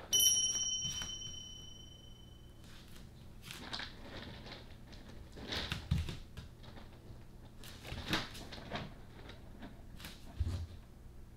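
A short bright chime rings at the start and fades away over a couple of seconds. Then a tortoiseshell cat digs in its litter box, with several short scratching strokes through the litter and a few soft low thumps.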